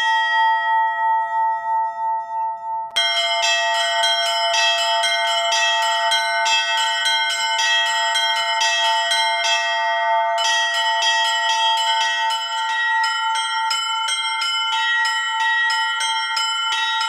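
Orthodox church bells rung by hand: a bell struck once rings on with a slow, wavering pulse, then from about three seconds in a quick run of strikes on the smaller bells chimes over the sustained tones of the larger ones, the pattern shifting about ten seconds in.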